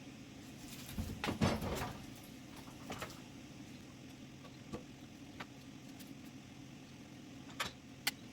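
A cluster of clunks and rattles about a second in, then a few sharp single clicks, over a faint steady hum.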